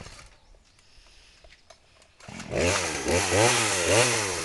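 Gas chainsaw firing up about two seconds in, then revving up and down three times.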